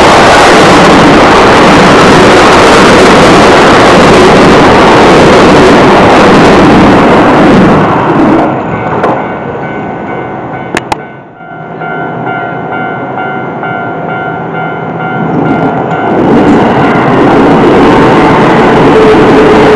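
Keio Line electric trains passing over a level crossing: loud rushing wheel-and-rail noise dies away about eight seconds in. That leaves steady ringing tones from the crossing alarm, with two sharp clicks, until a second train's rushing noise builds up again about sixteen seconds in.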